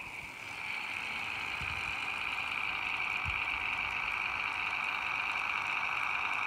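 Märklin 39978 H0 scale model rail bus running along the track: a steady high whine of its motor and running gear, growing a little louder in the first second as it approaches.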